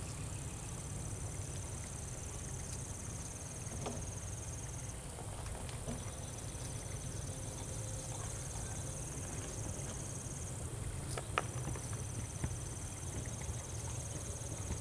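Outdoor ambience: a steady low rumble under a thin, high insect trill that breaks off briefly twice, with a few faint clicks, the sharpest about eleven seconds in.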